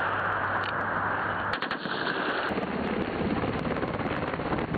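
Military helicopter running nearby: a steady rushing engine and rotor noise with a low hum, changing in texture partway through.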